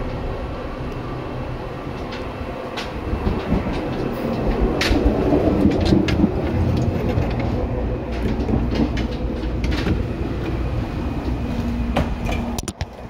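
Running noise heard inside a Seibu 2000 series commuter train: a steady rumble of wheels on rail with sharp clicks now and then, swelling a few seconds in. A steady low hum comes in near the end.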